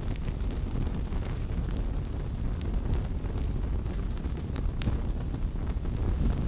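A steady, low, wind-like rumble, dotted with scattered faint high clicks and crackles.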